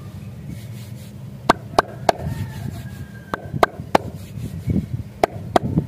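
Sharp clicks or taps in quick groups, three, then three more, then two, each about a third of a second apart, over a steady low hum.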